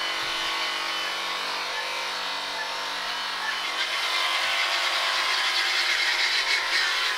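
Corded electric sheep shears running steadily, a motor hum with its overtones and the cutter buzzing as it is pushed through the fleece; the sound grows a little louder and rougher from about four seconds in.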